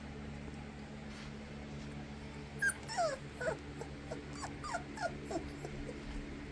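Labrador puppy giving a run of about ten short, high whimpers, each falling in pitch, starting a little before halfway through. A steady low hum runs underneath.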